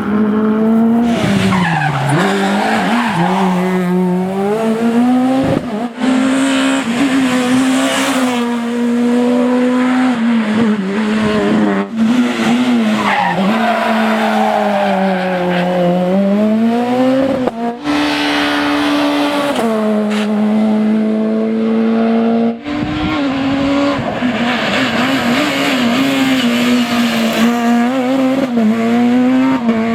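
S2000 rally cars' naturally aspirated 2.0-litre four-cylinder engines revving hard at stage pace. The pitch drops and climbs again with lifts and gear changes, and the tyres squeal at times. The sound cuts abruptly from one car to the next about four times.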